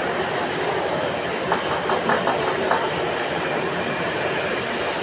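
Steady hiss of a running machine, with a quick run of light clicks about a second and a half in.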